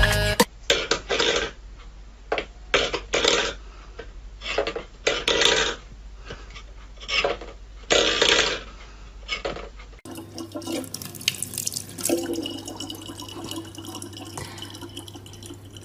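Metal pet bowls clattering on a wooden floor, a string of irregular knocks as the cat paws at them. Then a tap running a thin stream of water into a plastic water bottle, over a steady low hum.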